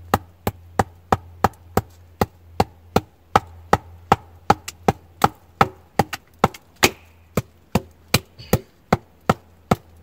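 Wooden pounding stick striking the rounded top of a wooden peg, driving it into the ground: a steady run of sharp knocks, about three a second.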